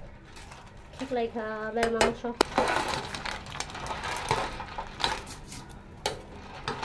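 Metal ladle clinking and scraping against an aluminium cooking pot as a soupy bamboo shoot and snail curry is stirred, with a few sharp clinks.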